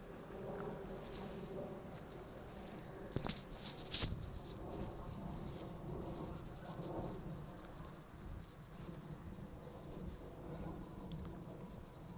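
Insects chirping in high, even pulses, with a cluster of sharp clicks or knocks about three to four seconds in.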